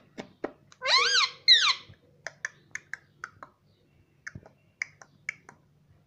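Indian ringneck parakeet giving two short, wavering high-pitched calls about a second in. A string of quick, sharp clicks follows, about three or four a second, and stops shortly before the end.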